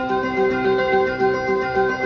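JR East Ōfuna Station platform 4 departure melody playing over the platform loudspeakers, a looping tune of steady tones over a repeating pulsed note pattern. It signals that the train on track 4 is about to leave, with the doors closing as soon as the melody ends.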